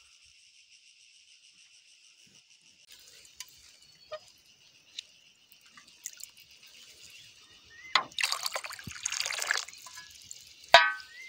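Water poured from a plastic tub into a glass jar, splashing for about two seconds near the end, followed by a sharp clack. Faint steady insect chirring runs underneath.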